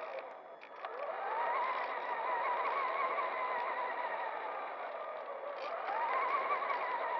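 Electric RC truck's motor and gears whining, rising in pitch as it speeds up about a second in, easing off around five seconds, and rising again near the end, over a steady rumble of tyres on wooden boardwalk boards. A few light clicks sound about half a second in.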